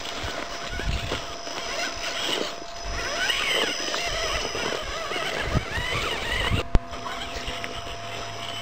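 Small electric motor and gearbox of an Axial Wraith RC rock crawler whining, the pitch rising and falling as the throttle is worked over rocks, with low rumbling gusts on the microphone. A single sharp click about two-thirds of the way through.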